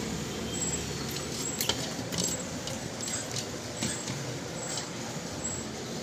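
A handful of light, irregular clicks of a woodpecker's bill tapping the window glass at its own reflection, over a steady low background rumble.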